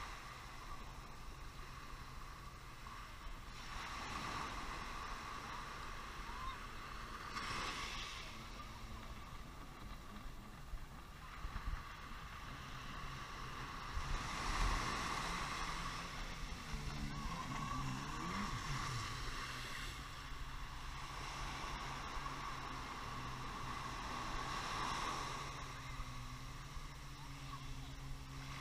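Small waves breaking and washing up the sand in surges every few seconds. From about halfway through, a jet ski's engine hums out on the water, its pitch wavering briefly before it settles to a steady drone.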